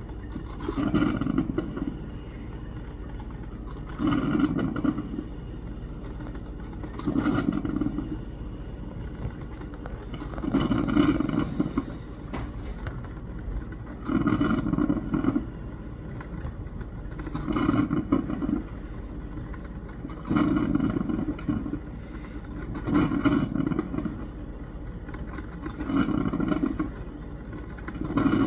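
Coffee maker brewing, its sound coming in bursts about a second long, roughly every three seconds.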